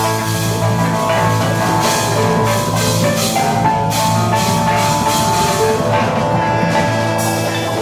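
Experimental jam-session music: a drum kit playing under long, held notes.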